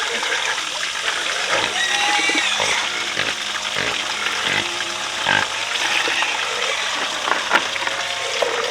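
Pigs grunting and squealing, with scattered knocks and clatter.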